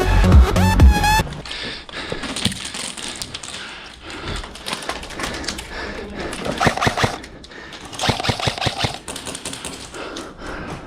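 Background music cuts off about a second in, then airsoft guns fire in rapid bursts of sharp clicks, several times over.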